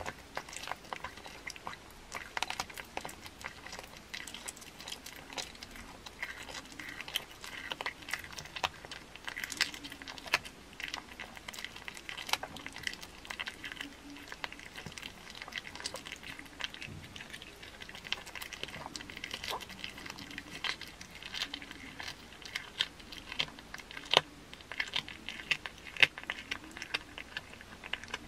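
Cat chewing and crunching a raw chicken head and raw meat. There are many short wet crunches throughout, and the sharpest, loudest crunches come near the end.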